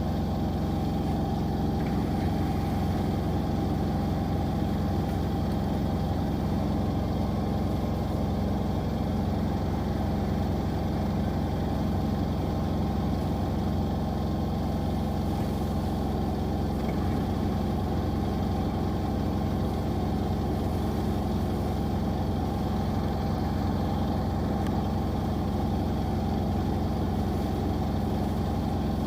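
Washing machines in their spin cycle, drums turning at a steady high speed with a constant hum and whine.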